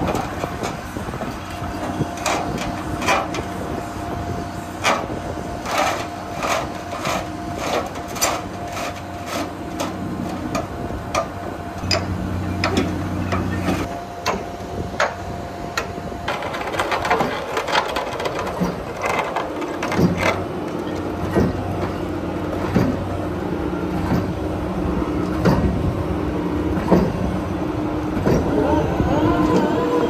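Heavy construction machinery running with a low engine hum, under many sharp metallic clanks and knocks, thickest in the first half. A steady high tone runs through the first half and stops about halfway.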